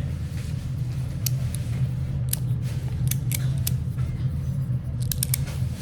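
A steady low hum runs throughout, with scattered sharp little clicks from resin-printed fidget pieces being handled: a few single clicks, then a quick run of clicks near the end.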